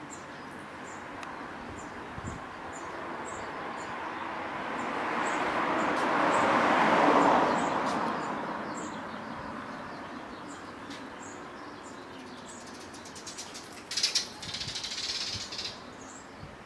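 Outdoor ambience with birds chirping in short high notes about twice a second, while a vehicle's noise swells over a few seconds and fades away as it passes, followed by a few clicks near the end.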